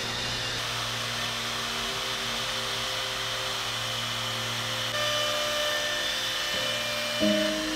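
A gantry router's spindle runs and its straight bit cuts a groove along the edge of a wooden board, giving a steady motor whine with cutting noise. It grows louder about five seconds in, with a brief louder surge near the end.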